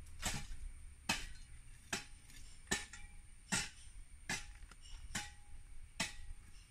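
Crickets chirping in a steady, high continuous trill, with a sharp click a little more than once a second.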